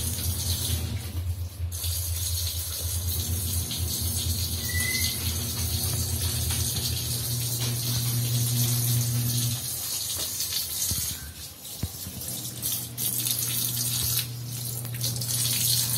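Water running from a kitchen faucet into a stainless-steel sink, with a low steady hum underneath.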